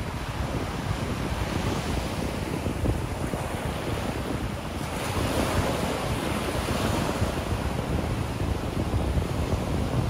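Ocean surf breaking and washing up a sandy beach, with wind buffeting the microphone. The wash swells about halfway through as a wave breaks close in.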